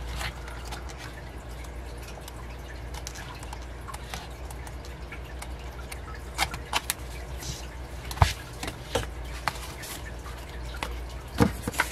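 Paper pages of an album photobook being flipped through by hand, a run of soft rustles and light clicks, with a few sharper taps, the loudest about eight seconds in and another shortly before the end, over a steady low hum.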